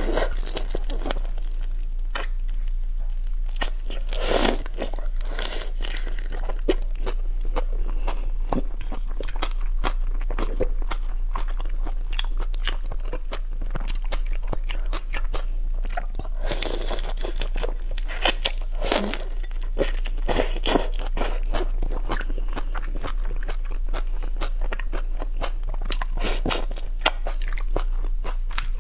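Close-miked chewing and crunching of whole raw marinated shrimp, shells included, with many small wet clicks and several louder crunchy bites spread through.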